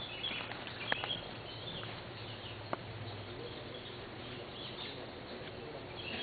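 Outdoor ambience with birds chirping and a few sharp clicks as a knife works at the wooden top bars of a bee box.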